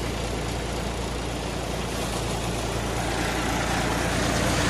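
Mahindra 295 DI Turbo tractor's diesel engine running steadily at about 1200 rpm under load, driving a five-fan paddy thresher whose drum and fans add a constant rushing noise. It grows somewhat louder toward the end.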